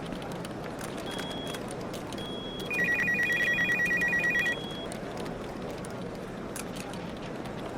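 Office telephone ringing with an electronic trill: one ring of nearly two seconds about three seconds in, while a fainter, higher tone beeps four times. Under it runs a steady room hum with scattered small clicks.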